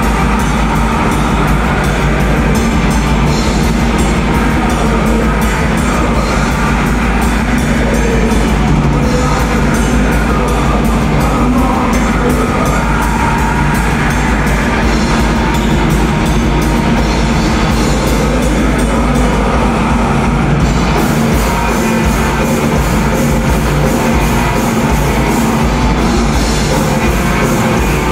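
Black metal band playing live at full volume: distorted electric guitars and bass over fast, dense drumming. About two-thirds of the way in, the low end changes as the bass drum and bass pattern shifts.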